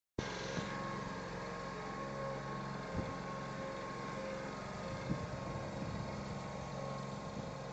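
Dingo mini loader's engine running steadily, with a few short clunks about half a second, three seconds and five seconds in.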